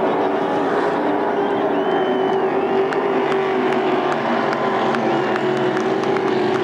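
Racing motorboat engines running at speed, a steady drone that holds one pitch.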